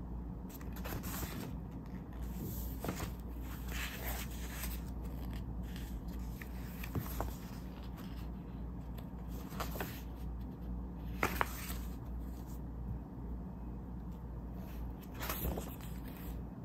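Pages of a paperback book being turned and smoothed flat by hand: soft, irregular paper rustles and swishes, the loudest about eleven seconds in, over a steady low hum.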